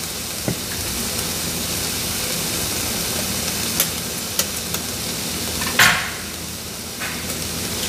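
Pancetta sizzling steadily in a hot frying pan, with a few sharp taps as an egg is cracked with a knife and a louder crack of shell near the end.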